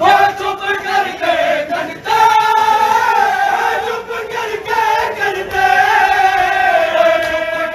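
A large group of men chanting a noha, a Shia mourning lament, in unison, in long wavering held notes that break off briefly about two seconds in.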